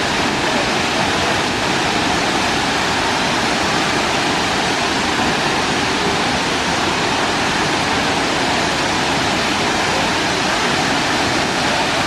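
Tinago Falls, a tall waterfall, pouring steadily into its plunge pool: a loud, even rush of falling water.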